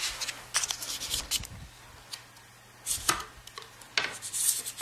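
Handling noise: scattered clicks and short rubbing scrapes as a paper card is slid along the gap between a rifle's barrel and its laminated wooden stock, a check that the barrel is free-floated. A faint steady low hum runs underneath.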